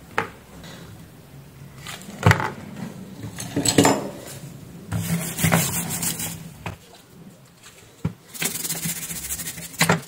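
Toothbrush bristles scrubbing a small power-adapter circuit board, in two stretches of brisk brushing in the second half. The first half holds a few sharp knocks and clatters of tools being handled.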